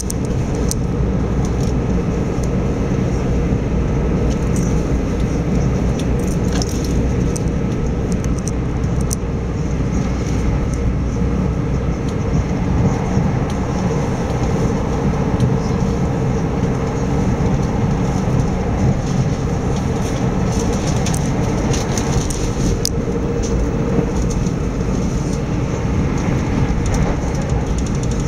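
Steady rumble and rush of an Electrostar electric multiple unit running at speed, heard from inside the carriage, with a few sharp clicks along the way.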